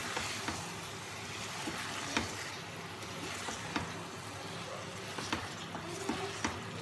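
Eggs being stirred through thick masala sizzling in a pan on a gas stove. A spoon scrapes and knocks against the pan a handful of times over the steady sizzle.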